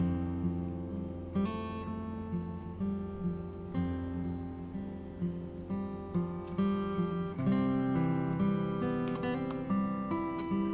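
Background music: an acoustic guitar plucking and strumming chords, with the chords changing every second or two.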